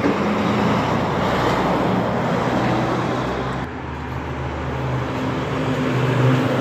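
Street traffic noise as a heavy truck passes. About halfway through it gives way to the steady, low hum of a garbage truck's diesel engine running close by.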